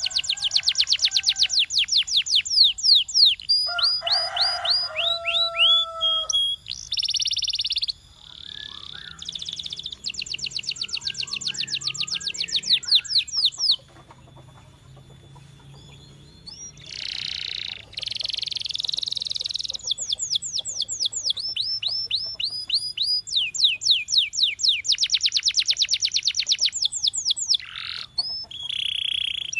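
Canary singing a long, varied song: fast trills of rapidly repeated notes, some sweeping down in pitch, alternating with buzzy rolls. The song pauses briefly a little before halfway, then resumes with more trills.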